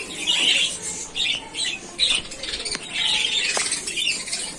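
A flock of budgerigars chattering with short, repeated chirps and squawks in quick bursts.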